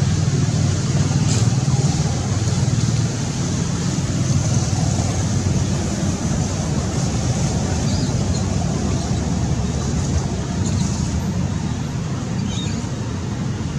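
Steady low rumbling background noise, with a few faint high chirps about halfway through and near the end.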